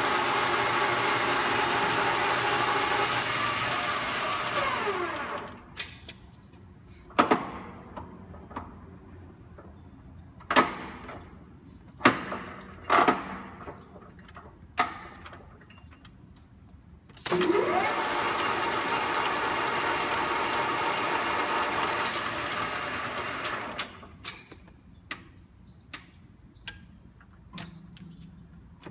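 Cadillac 14" x 28" geared-head engine lathe running, then winding down about five seconds in. A series of sharp clunks and clicks follows. A little past halfway the lathe starts up again, runs for about six seconds and winds down, with more clicks after it.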